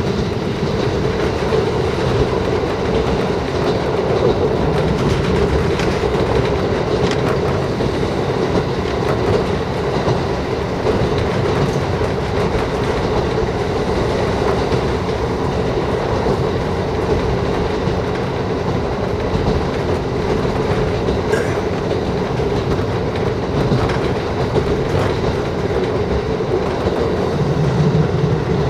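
Diesel railcar running along the line, heard from inside the passenger cabin: a steady running drone with the clickety-clack of the wheels over rail joints.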